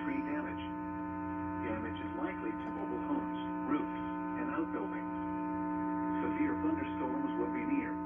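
Steady electrical hum made of several held tones, with faint speech from the television under it.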